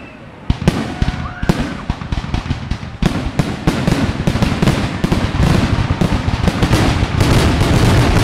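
Aerial fireworks shells bursting: a few separate sharp bangs, then from about three seconds in a rapid, almost continuous barrage of bangs that grows louder.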